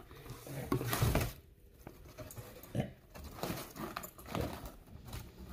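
Crumpled kraft packing paper and a cardboard box rustling and scraping in irregular bursts as a dog roots through the box with its head, the loudest burst about a second in.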